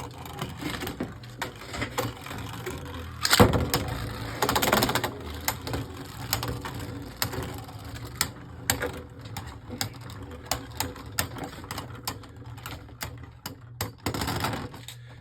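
Two Beyblade Burst spinning tops whirring and clashing in a plastic stadium, a rapid run of clicks and scrapes throughout. The hardest hit comes a little over three seconds in, with another flurry of collisions soon after and again near the end.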